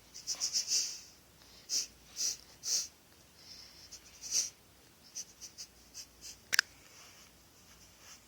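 Lapping: quick wet strokes in irregular runs of a few at a time, with pauses between. A single sharp click comes about six and a half seconds in.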